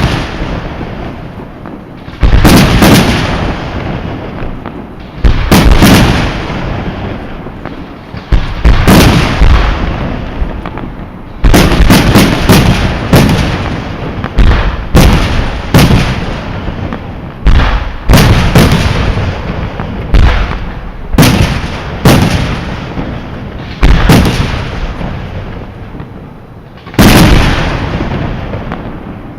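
Aerial fireworks shells bursting in a display: loud bangs, each trailing off in a long echoing rumble. They come a few seconds apart at first, then in quicker runs through the middle, with a last big bang near the end.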